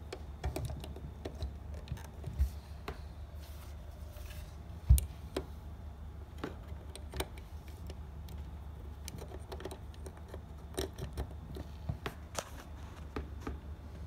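Scattered plastic clicks and knocks of a small USB charger being handled and pushed into a universal travel adapter at a wall socket, with one sharp knock about five seconds in.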